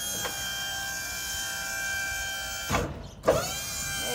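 Maxon tuck-under liftgate's electric hydraulic pump motor running with a steady whine as the platform is raised. It cuts off about three seconds in and starts again a moment later.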